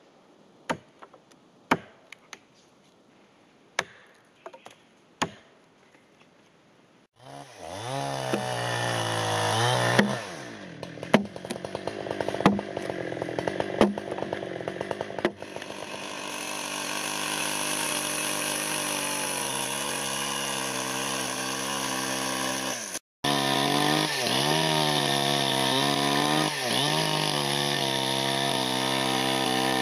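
Several sharp axe strikes on wood. About seven seconds in, a chainsaw starts and runs, its pitch dipping and rising as it cuts planks from a log. It stops for a moment about two-thirds of the way through, then runs on.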